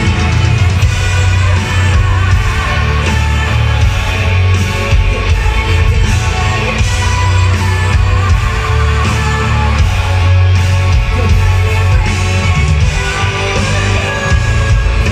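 Symphonic metal band playing live through a concert PA: distorted electric guitars, bass, drums and keyboards, with a heavy, booming low end.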